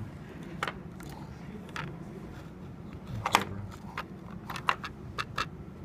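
Scattered light clicks and taps from handling a breadboard circuit and the phone filming it, a few close together about three seconds in, over a faint low hum.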